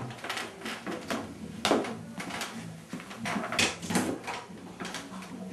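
A door being opened and handled, giving a series of irregular knocks and clunks, the loudest about one and a half and three and a half seconds in.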